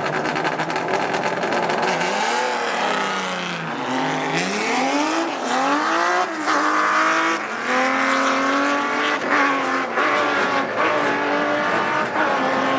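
Drag-racing car engine revving up and down, then accelerating hard, its pitch climbing and dropping back several times as it works up through the gears.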